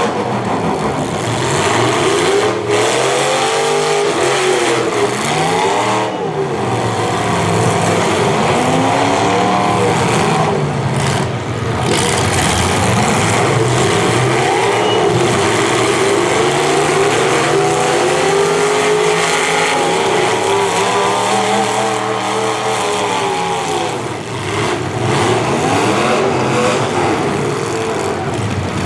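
Several V8 demolition derby car engines revving at once, their pitches rising and falling over and over as the cars accelerate and back off.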